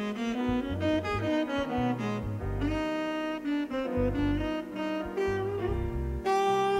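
Background instrumental music: a low bass line moving note by note under a sustained melody line.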